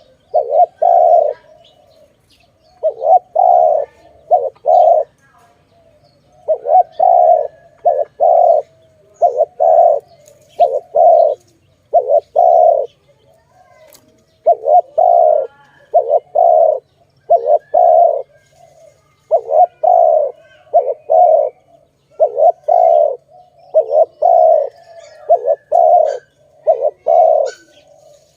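Spotted dove (tekukur) cooing: loud, short, low coos delivered in repeated phrases of two to four notes, one phrase every couple of seconds.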